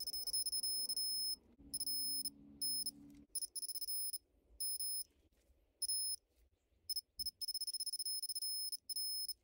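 Digital torque wrench beeping in rapid high-pitched bursts as each cylinder head bolt is pulled up to the set 39 N·m, with short pauses between bolts; about seven bursts, the last and longest near the end.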